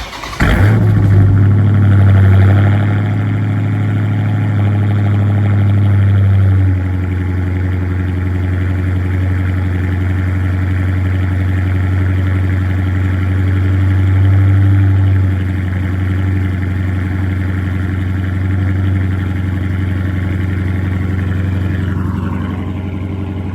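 2019 Dodge Challenger Scat Pack's 6.4-litre HEMI V8 cold-starting through an exhaust with the mid muffler deleted. It fires right away and runs at a high fast idle, then steps down to a lower, steady idle about seven seconds in.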